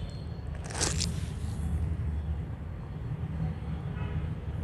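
A brief rustle of saree cloth and measuring tape being handled about a second in, over a steady low hum.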